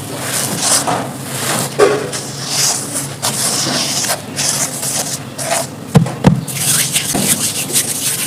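Dry pressed charcoal being crushed and crumbled by hand: an uneven stream of crunching and gritty scraping, with two sharp knocks a moment apart about six seconds in.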